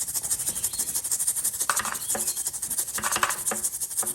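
Water spraying from a 12-volt pump sprayer wand to rinse a surface: a steady, rapidly pulsing hiss with a few short knocks through it.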